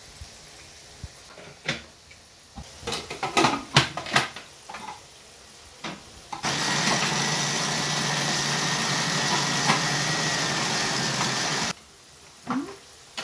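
Stand mixer's food processor attachment running for about five seconds, chopping tomatoes and green capsicum, a steady motor noise with a thin whine that starts and cuts off abruptly. Before it, several plastic knocks and clatters as the parts are fitted and the vegetables dropped in.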